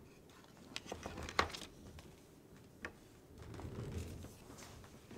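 Small objects being handled and moved about on a workbench while rummaging for a dropped part: a few sharp clicks and knocks about a second in, another click near three seconds, then a soft rustle.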